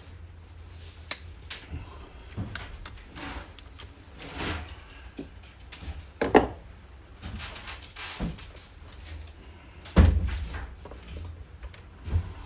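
Irregular knocks, clunks and rustling from handling tools and materials, with two heavier thumps about six and ten seconds in, over a steady low hum.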